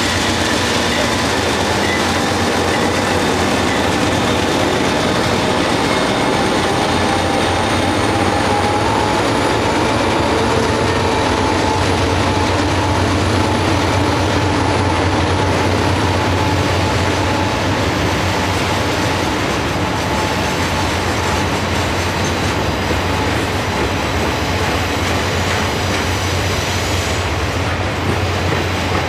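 Loaded ballast hopper cars of a freight train rolling past close by, a steady, loud rumble and clatter of steel wheels on rail. From about a quarter of the way in, a thin, steady wheel squeal rides over it.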